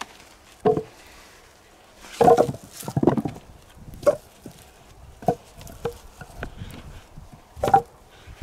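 Birch logs set down onto a woodpile, knocking wood on wood about seven times at uneven intervals, the heaviest knocks about two and three seconds in and near the end.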